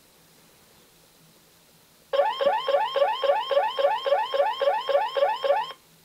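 Electronic toy sound effect imitating a car alarm: a rapid train of rising whoops, about four a second. It starts about two seconds in and cuts off sharply after three and a half seconds.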